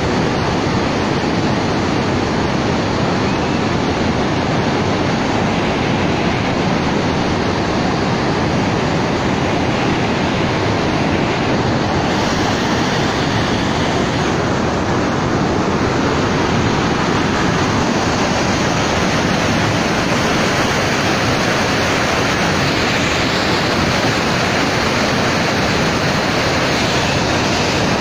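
Steady rush of floodwater pouring over a dam's spillway and churning downstream.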